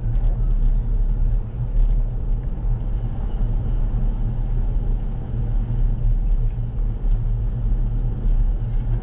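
Steady low rumble of wind and road noise on a bike-mounted GoPro's microphone while riding.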